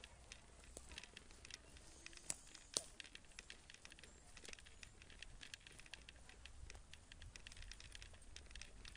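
Faint footsteps of a group walking on a forest dirt path: irregular small crunches and ticks, with two sharper clicks between two and three seconds in.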